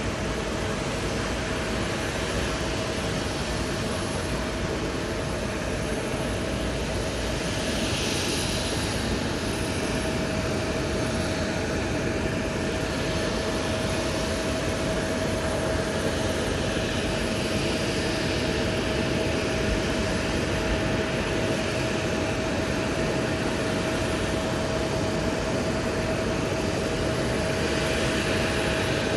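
Jet airliner engines heard at a distance: a steady rush of noise with a steady whine, growing slightly louder toward the end.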